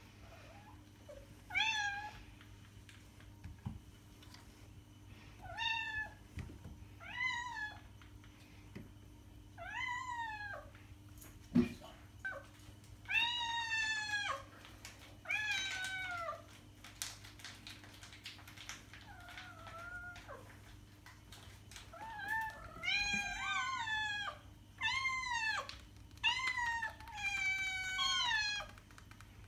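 Domestic cat meowing again and again: short meows a few seconds apart at first, then coming in quick runs near the end. One sharp tap about halfway through.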